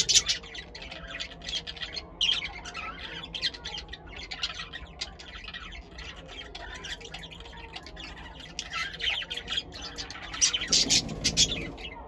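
Male budgerigar warbling, a fast run of short squawky chirps and chatter typical of a male's courtship song, louder near the start and again about ten seconds in.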